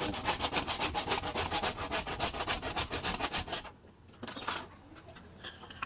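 Handsaw cutting through wood at the base of a turned vase on the lathe, parting it off: quick, regular rasping strokes, several a second, for about three and a half seconds, then it stops, with one short burst of sawing a little later.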